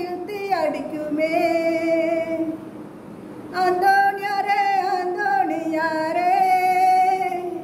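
A woman singing a Tamil devotional song to St. Anthony, holding long wavering notes. She breaks off briefly about three seconds in, then picks up the line again.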